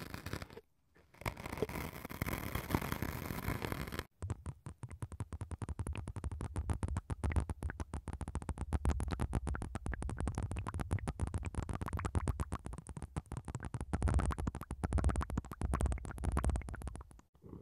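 A wooden ear pick scraping and digging into white cubes set over the microphones, dense scratchy noise broken by a short gap about a second in. From about four seconds in, blue liquid from syringes falls onto the bare microphone capsules as rapid, irregular crackling taps with a low thudding underneath, stopping just before the end.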